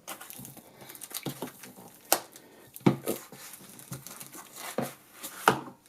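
Paper and packaging being handled: soft rustling and crinkling, with a few sharp clicks and taps, the clearest about two, three and five and a half seconds in.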